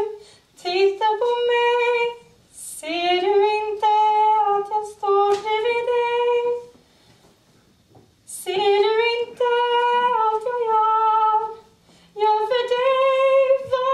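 A woman singing solo on stage in long held notes, phrase by phrase with short breaths between, with no accompaniment heard.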